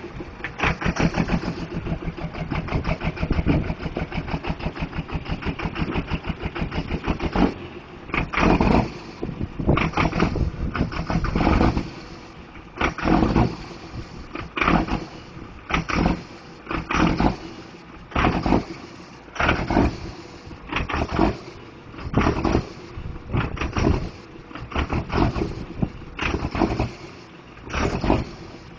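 Twin-turbo Cummins diesel truck engine running. It is steady for the first several seconds, then swells up and drops back about every second and a half in a rhythmic lope, which the owner puts down to a bad injector.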